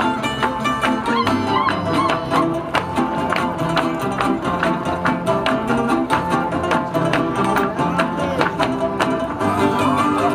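Lively Croatian folk dance music on string instruments, plucked strings keeping a quick, steady beat under a bowed fiddle line.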